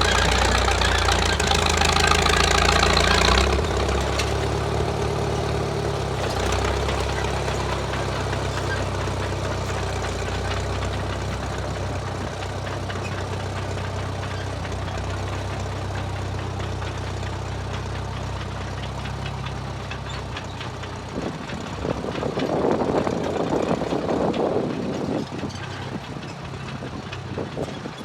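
1934 Caterpillar crawler bulldozer's engine running steadily under work, loudest in the first few seconds and then settling lower. From about 22 to 25 seconds in, a louder, rougher noise rises over it.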